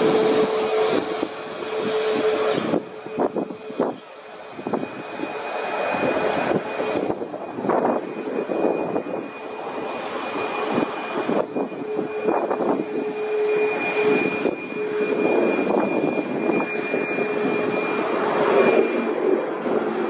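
Boeing 737 MAX 8's CFM LEAP-1B turbofan engines running: a roar of jet noise with a steady low hum and a thin higher whine, broken off and resumed several times by abrupt cuts.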